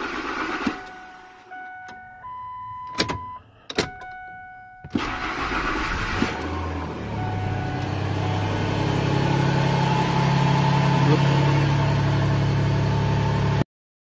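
Ford F-150 pickup engine running, then switched off about a second in; dashboard warning chimes and two sharp key-switch clicks follow as the key is turned, and about five seconds in the engine cranks, catches and runs on at idle, growing louder, which shows the newly programmed key starts the truck.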